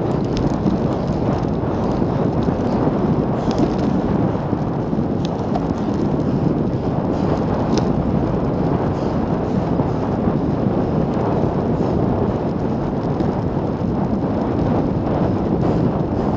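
Wind rushing over the microphone of a handlebar-mounted camera on a road bike moving at about 40 km/h: a steady low rumble, with a few faint clicks.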